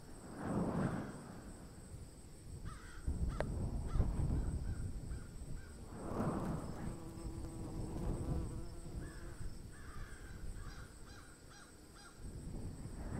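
Crows cawing, several harsh caws spaced a few seconds apart, over a steady low rumble and a faint steady high-pitched whine.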